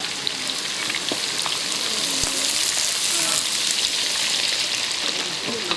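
Chunks of food deep-frying in a large wok of hot oil, with a steady loud sizzle as the oil bubbles around them. A perforated ladle stirs and lifts pieces from the oil.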